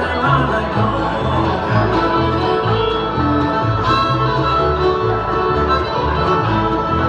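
Bluegrass music: fiddle, guitar and banjo playing over a steady bass line of just under two notes a second.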